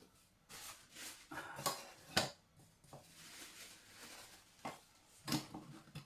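Metal camping cookware and stove parts being handled: a series of clinks, knocks and clatters as small pans and pieces are moved and set down, with a little rustling in between.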